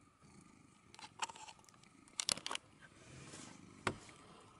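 Thai cat purring faintly and steadily, with a few sharp clicks and scrapes about a second in, in a cluster just after two seconds, and once near four seconds.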